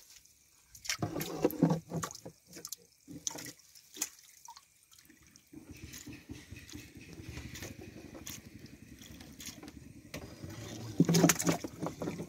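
Water splashing and dripping in a boat's live-bait well as a hand scoop net is dipped in and lifted out among live shrimp. There are scattered drips and small splashes, then a steadier sloshing wash, and a louder burst of splashing about eleven seconds in.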